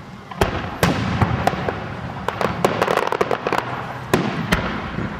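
Aerial firework shells bursting: several sharp bangs in the first second or so, a rapid flurry of crackling reports around the middle, then two more bangs near the end.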